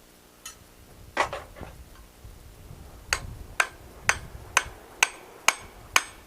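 Blacksmith's hand hammer striking hot steel on an anvil, a few scattered blows and then a steady run of about two blows a second, each with a short metallic ring, as a punched hole is drifted.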